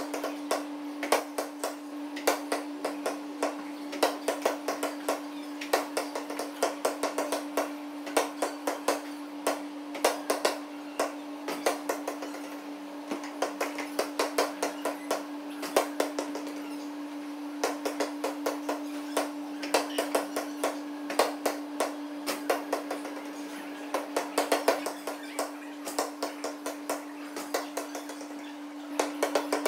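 Basketballs bouncing on a gym floor in quick, irregular runs of echoing thuds, over a steady hum.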